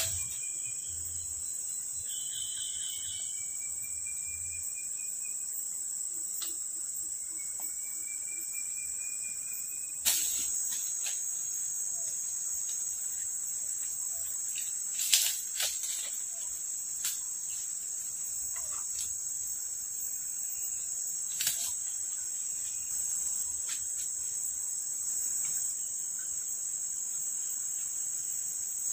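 Steady high-pitched chorus of tropical forest insects, with a few faint rising whistles in the first third. Several sharp knocks or snaps stand out, the loudest about a third and halfway in.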